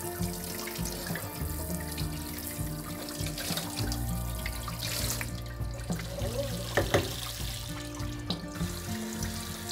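Kitchen tap water running and splashing onto the bottom of a cast iron skillet in a sink as rust-remover gel is rinsed off, with background music. A short, louder noise comes about seven seconds in.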